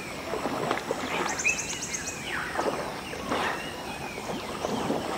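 Asian elephants sloshing and splashing in river water, with birds calling in short whistles and chirps. A quick high trill sounds about a second and a half in.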